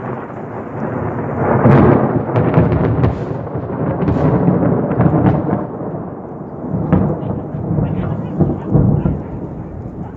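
Thunder: a rolling rumble that swells over the first two seconds into sharp crackling, then keeps rumbling in waves.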